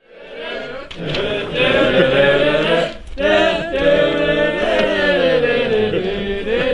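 Several voices singing together in long held notes, fading up at the start, with a short break about three seconds in.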